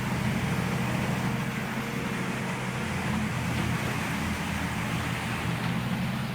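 Morbark 50/48 whole tree drum chipper running steadily: a constant low machine hum with no separate chipping impacts.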